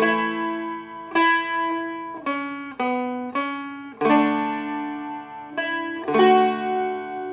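Seagull Merlin M4, a four-string dulcimer-style instrument, picked slowly: about eight single melody notes, each ringing on over the droning open strings.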